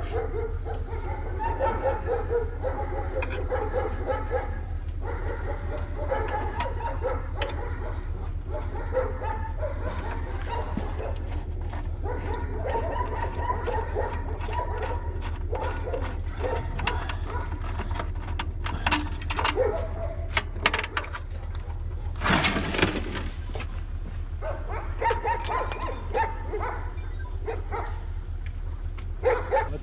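A dog whining on and off in wavering high tones, over a steady low hum, with scattered clicks and knocks.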